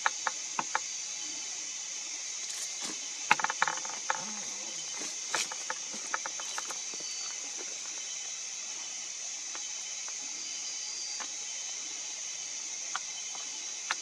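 Steady high-pitched chorus of night insects, with scattered sharp clicks and taps, the busiest cluster about three to four seconds in.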